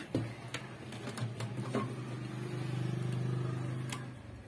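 Light clicks and rattles of a CRT TV's circuit board and its wires being handled, with a low steady hum that swells in the second half and fades out near the end.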